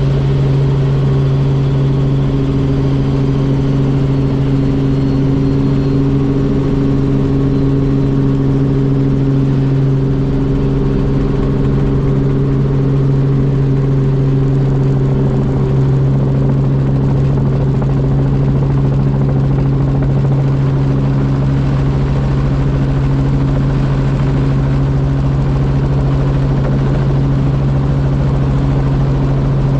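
Robinson R44 Raven II helicopter in steady flight: its six-cylinder Lycoming piston engine and rotors make an even, unchanging drone with a strong low hum.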